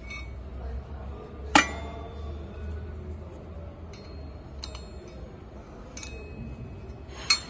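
Metal-on-metal knocks and clinks on the steel parts of a press frame: a loud ringing strike about one and a half seconds in, lighter clinks about four to six seconds in, and another loud ringing strike near the end.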